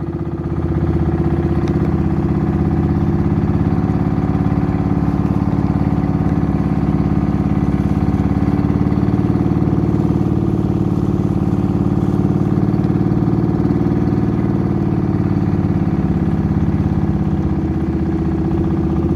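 Outrigger fishing boat's engine running steadily while the boat is under way, picking up a little about half a second in.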